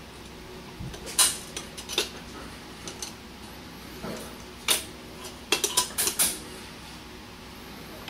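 Sharp metallic clicks and clinks from a Columbia automatic drywall taper's quick-release tape spool keeper and its T-handle pin being handled: a few single clicks, then a quick run of five or six about six seconds in, over a steady low hum.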